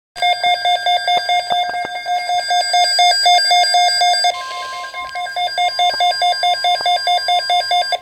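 Midland NOAA weather alert radio sounding its alarm: rapid, even, high-pitched electronic beeps, about four or five a second. Just past four seconds a steady single tone, the broadcast weather alert tone, comes in and the beeping resumes over it; the alarm signals an incoming alert, here a severe thunderstorm watch.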